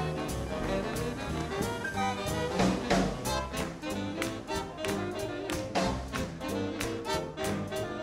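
Live swing big band playing: saxophones and brass over drums keeping a steady beat, with a louder accent about three seconds in.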